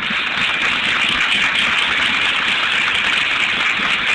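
Audience applauding: a dense, steady clatter of many hands clapping after an applause line, on an old recording with a muffled top end.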